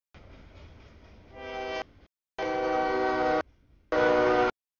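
Low rumble of a freight train, then a diesel locomotive's air horn sounding three short blasts for the grade crossing, each cut off abruptly, the last two the loudest.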